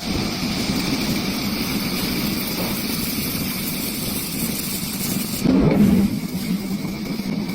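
CNC lathe running steadily with a machine hum and a high whine, swelling louder for about half a second around five and a half seconds in.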